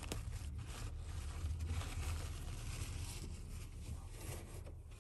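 White wrapping paper rustling and crinkling as a small cactus is unwrapped by hand, in many short uneven crackles, over a steady low rumble.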